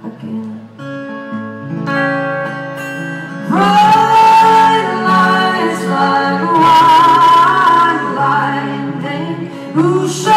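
Live concert music: held chords, then, about three and a half seconds in, several voices come in louder, singing together in close harmony with wavering held notes.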